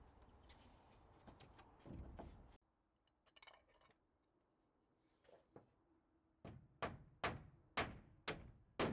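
Hammer driving nails into plywood siding on a timber frame: six sharp blows about two a second, growing louder, in the last few seconds.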